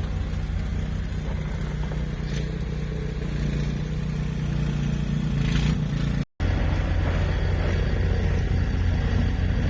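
Snowblower engine running steadily while clearing a snowed-in driveway, cutting out for a moment about six seconds in.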